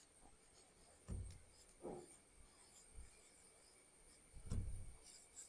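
Near silence: quiet room tone with a faint steady high-pitched whine and a few soft, brief low noises.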